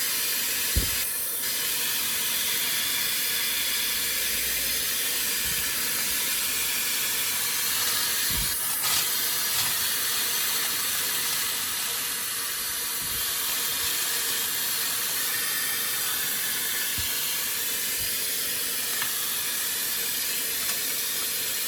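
Brushless high-speed hair dryer with its 108,000 rpm motor blowing steadily at high speed through the concentrator nozzle: a steady rushing hiss of air. Two brief low knocks from handling come about a second in and near the middle.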